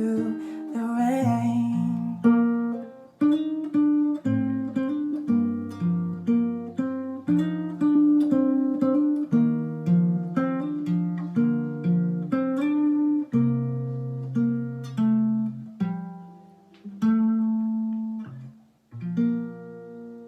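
Acoustic guitar playing the song's closing instrumental, separate plucked notes that each ring out and decay, slowing with short gaps near the end. A held sung note fades out in the first second or two.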